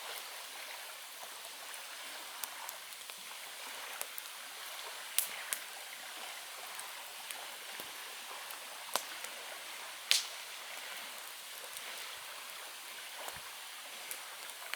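Campfire burning, a steady hiss broken by sharp crackles and pops every second or few, the loudest about ten seconds in.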